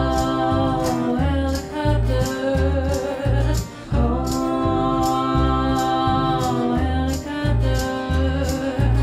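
Live acoustic band playing a song: a woman singing long held notes, with upright bass, acoustic guitar and a tambourine hit about twice a second on the beat.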